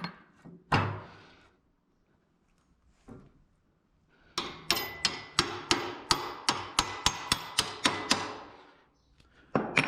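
Hammer striking metal: one knock, then a run of about a dozen sharp ringing blows, about three a second.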